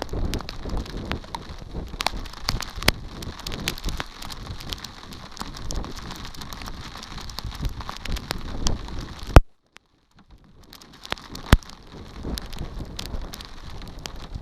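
Rain falling, with many sharp drops striking close by over a steady patter. About nine seconds in a loud tap is followed by about a second of near silence before the rain sound resumes.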